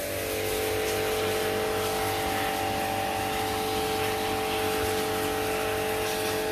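A motor running with a steady hum made of several fixed tones, over a noisy background hiss.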